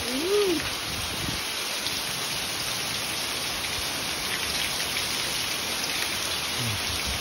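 Heavy rain falling steadily, water streaming off the edge of a tiled roof and splashing onto the ground.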